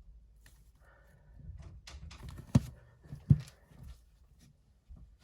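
Handling clicks and rustling, with two sharp knocks about two-thirds of a second apart.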